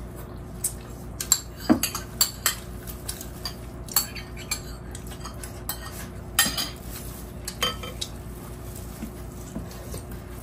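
Metal spoon clinking and scraping against a soup bowl in irregular sharp taps as soup is eaten.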